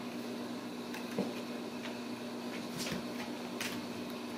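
A few brief scratches and a soft thump from kittens' paws and claws on a corrugated cardboard scratcher, over a steady low hum in the room.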